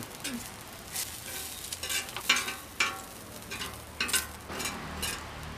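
Knife blade scraping fried curry leaves across a hot iron dosa griddle in a series of short, uneven scrapes, with a light sizzle from the hot surface.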